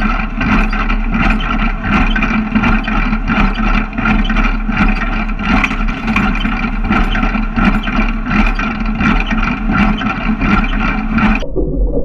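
Hesston 4590 small square baler running close up while baling hay: a steady mechanical hum with a fast, even rhythm of metallic clanks from the plunger, packer and knotter mechanism. Near the end it cuts abruptly to a deeper, muffled rumble.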